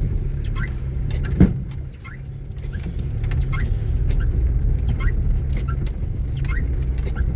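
Steady low rumble of a car heard from inside, with short squeaks repeating about twice a second and a single knock about a second and a half in.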